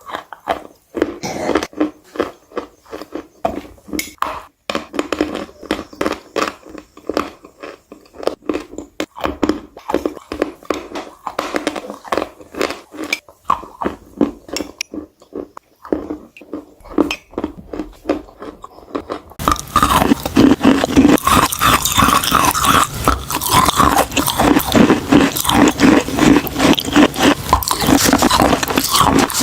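Close-miked crunching as chalk is bitten and chewed, a dense run of sharp crackles. About two-thirds of the way through the chewing suddenly becomes louder and denser.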